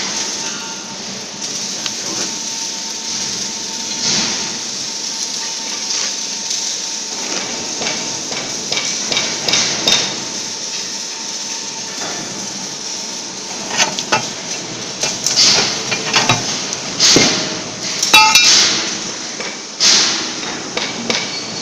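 Sharp metallic knocks and clinks, a few scattered at first, then a quick irregular run of louder ones in the last several seconds, over a steady hiss.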